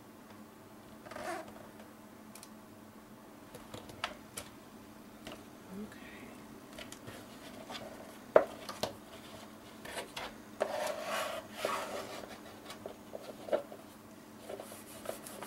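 Patterned cardstock being handled and rubbed as a glued flap is pressed into place on a paper folder: scattered rustles and scrapes with a few sharp clicks.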